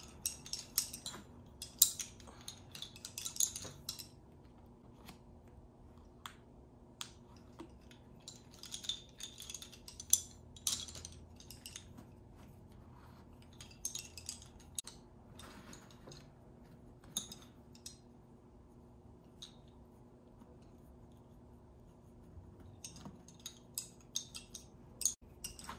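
Wooden lace bobbins clicking together in short, irregular clusters as pairs are lifted, crossed and twisted while working a mundillo cloth stitch.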